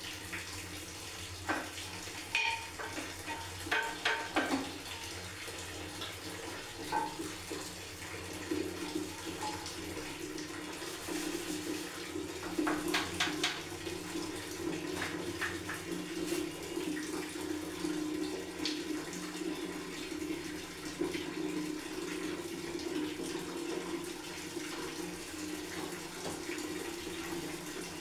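Water running steadily from a tap, with scattered short knocks and clatters of things being handled, most of them in the first few seconds and again about halfway through.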